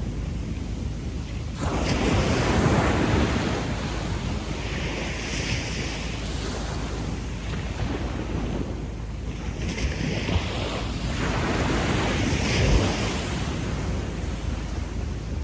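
Gentle sea waves breaking and washing up a sandy beach, a continuous surf hiss that swells with each wave. A wave breaks suddenly about two seconds in, and further washes come in near the middle and toward the end.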